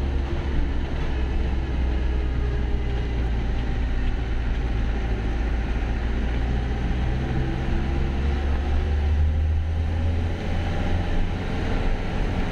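A diesel bus engine running, a steady low drone with no breaks.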